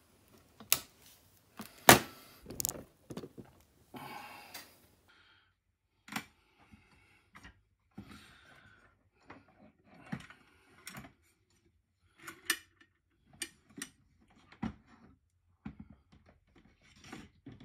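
Sharp clicks and knocks of hands working on a plastic security-camera housing: side cutters snipping a zip tie in the first couple of seconds, the loudest snap about two seconds in, then scattered clicks and taps as the housing is handled and closed.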